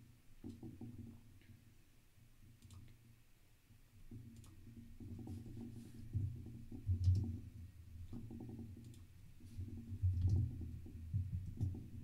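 Typing on a computer keyboard and clicking a mouse: scattered light clicks over clusters of dull low thumps.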